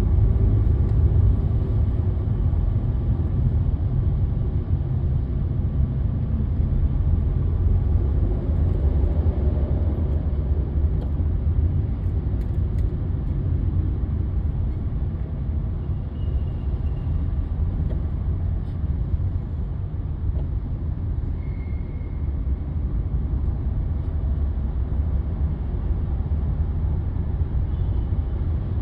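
A steady low rumble, with almost all of its weight in the deep bass.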